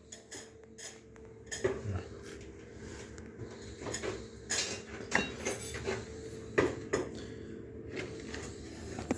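Irregular clinks, knocks and scrapes of hand tools and debris being cleared away during cleanup of masonry work.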